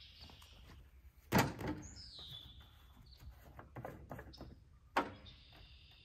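Two sharp clunks about three and a half seconds apart as the seat of a John Deere LA120 riding mower is tipped up and handled. A short falling chirp follows the first clunk.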